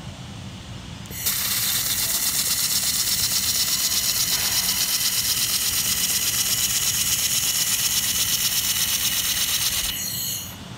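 LaserMen LM-2000W handheld laser welding head running a wire-fed weld along a steel butt seam: a loud, hissing sound with a fast, even pulsing that starts about a second in and cuts off near the end. A low steady hum runs underneath.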